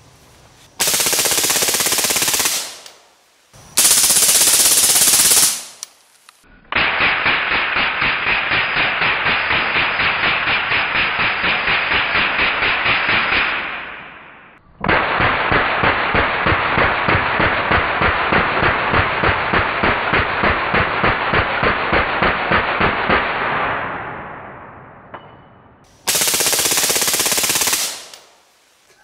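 Suppressed full-auto AR-15 in 5.56 firing supersonic rounds in sustained bursts of about two seconds: one about a second in, one about four seconds in and one near the end. Between them are two long stretches of the same fire slowed down, where the shots come as an even, duller train of separate reports; the second stretch fades out.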